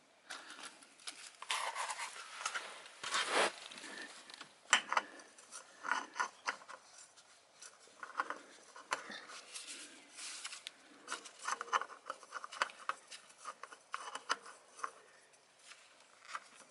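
Oil filter mounting face on a Peugeot Metropolis 400's engine being wiped clean by hand: irregular rubbing, rustling and scraping strokes, loudest a couple of seconds in.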